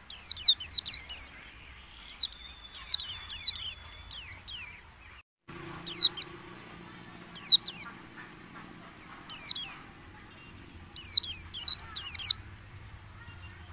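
White-eye (pleci) chirping in quick runs of short, high, downward-sliding notes, a few notes per run with pauses of a second or two between.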